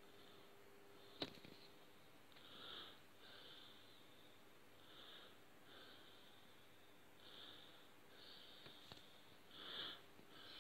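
Near silence with faint, irregular breaths close to the microphone, about one a second, and a single sharp click about a second in.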